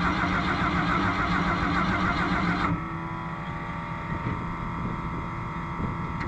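Race car's engine making a rapid, pulsing wheeze as it is push-started and fires intermittently, a sign of its hot-start trouble. The wheeze cuts off suddenly about three seconds in, leaving a quieter, steady hum.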